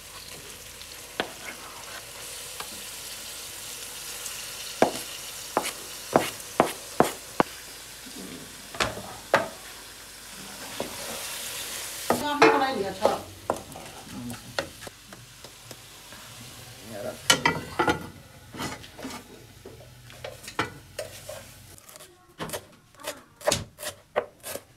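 Minced meat with peas and carrots sizzling as it fries in a large aluminium pan, a spatula scraping and knocking against the pan as it is stirred, with a ringing clatter about halfway through. Near the end, a knife chopping herbs on a cutting board in quick, regular strokes.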